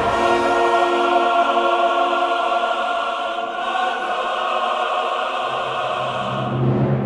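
Film-score music of long, held chords with no beat. A deep bass note comes in about five seconds in.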